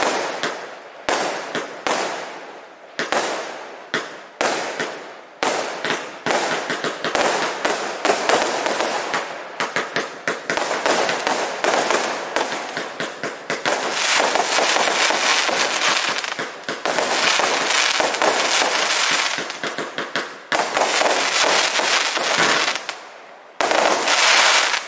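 A 200-shot automatic firework cake firing its finale. At first single shots go off about once a second, then from about six seconds in they come in a rapid, overlapping barrage that builds to a last burst near the end.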